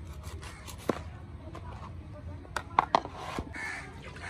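Several sharp knocks, one about a second in and a quick cluster of three or four about three seconds in, over a steady low background with faint bird calls.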